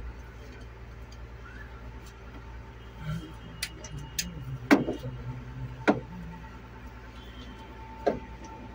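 Scattered sharp metallic clinks and knocks over a steady low hum, the loudest a little before the middle: tools working on a truck engine's valve gear during tappet adjustment.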